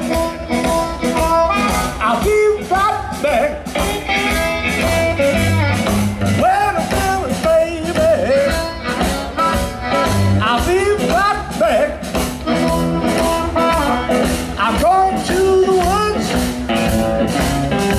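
Live blues band playing: amplified harmonica wailing with bent notes over electric guitar, upright double bass and drums keeping a steady beat.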